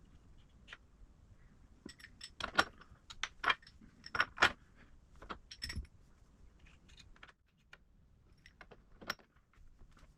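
Scattered metallic clinks and clicks of small steel tools and parts being handled and set down, thickest in the first half and thinning out later.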